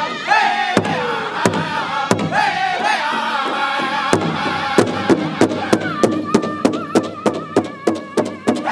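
Powwow drum group singing in high, falling phrases while the drummers strike a large shared drum together with sticks. About five seconds in, the strikes settle into a steady beat of about three a second under a held sung note.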